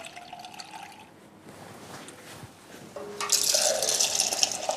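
Beer being poured from a cask tap into a glass: a quiet start, then about three seconds in a hissing, rushing pour that runs to near the end.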